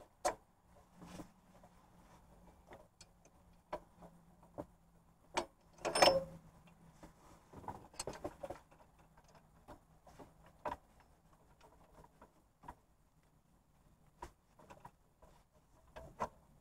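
Scattered light clicks and knocks of a new serpentine belt tensioner being worked by hand against the engine block as its locating pin is lined up with the slot, with a louder clunk about six seconds in.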